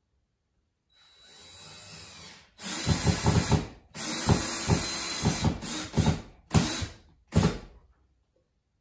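Cordless drill driving a screw into the wall through a blind's head rail bracket. It starts with a quieter run, then comes two long runs under load and three short bursts as the screw is seated. The screw is biting into a wooden stud, tough going.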